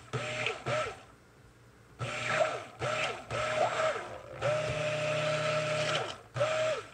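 Stick blender pulsed in short bursts in a pot of freshly combined oils and lye solution, its motor whine rising and dropping with each burst. There is a pause of about a second early on, and one longer steady run of about a second and a half later. This is the soap batter being blended toward trace.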